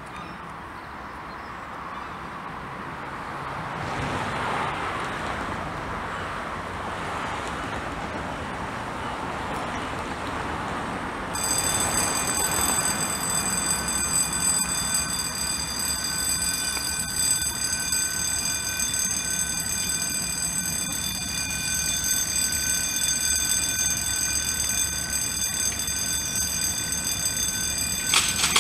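Class 37 diesel locomotive, its English Electric V12 engine and wheels running as it approaches slowly. About a third of the way in, a loud, steady, high-pitched ringing squeal with many overtones starts suddenly and carries on.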